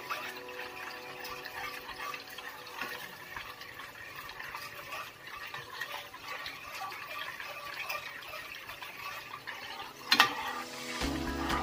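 Metal spoon stirring thin sauce in a nonstick frying pan: liquid swishing with light scrapes and scattered small ticks, and one sharp click about ten seconds in.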